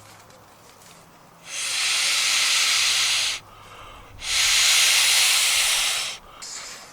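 Two long breaths blown by mouth into the valve of a sleep mat's built-in inflatable pillow, each a steady hiss of about two seconds, with a short pause between.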